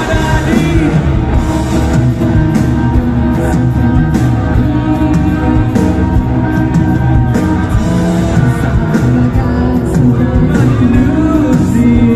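Live rock band playing loud through a PA, with electric guitars, keyboard and singing, heard from the crowd.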